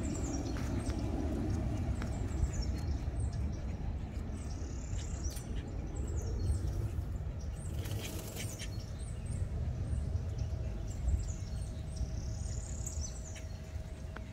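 Small birds chirping: short, high-pitched, downward-sliding chirps repeated throughout, over a steady low rumble.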